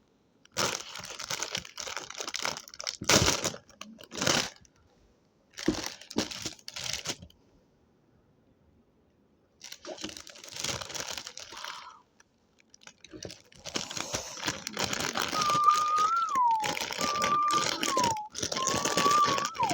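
Food wrapper crinkling and tearing in several bursts with short quiet gaps, as a piece of toast is unwrapped and handled, most continuous near the end. Three short high tones that fall in pitch sound near the end.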